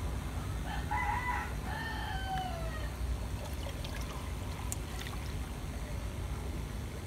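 A rooster crows once, starting a little under a second in and falling in pitch at its end, over a steady low rumble. A few faint clicks and scrapes follow as a metal spoon presses soaked bran through a mesh strainer.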